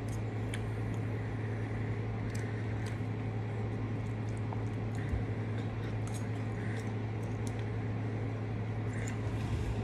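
Someone chewing food, with scattered light clicks of a metal fork on a dinner plate, over a steady low hum in the room.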